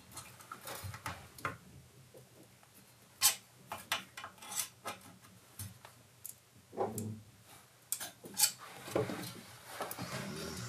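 Scattered light clicks and taps of hands working on an electric guitar and its strings, with a few duller knocks about two-thirds of the way in and near the end as the guitar is handled and moved.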